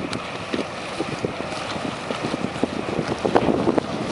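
Wind gusting on the microphone in short, irregular flutters over the steady low running noise of a small cargo ship coming in to the wharf.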